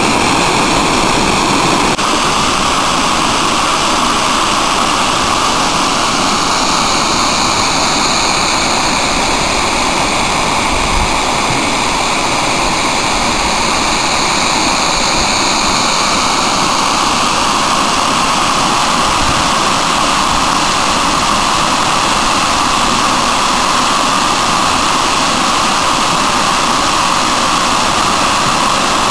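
Rainwater overflowing a dam's spillway: a steady, loud rush of falling water.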